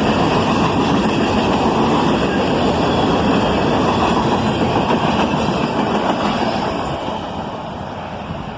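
Freight train cars rolling past on the rails, a loud, steady noise that fades over the last two seconds as the end of the train goes by.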